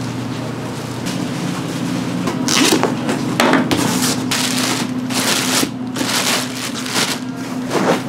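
Stirring crunchy oranda snack pieces in a pan: a series of scraping, crackling strokes that start about two and a half seconds in, over a steady low hum.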